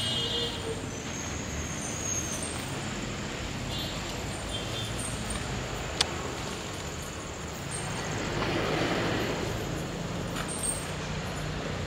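Steady low rumble of road traffic, growing louder for a couple of seconds about eight seconds in, with a single sharp click about six seconds in.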